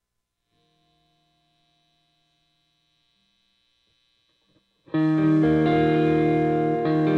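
A quiet electric guitar note rings on its own. About five seconds in, the rock band comes in loud together: distorted electric guitar chords over bass guitar and drums.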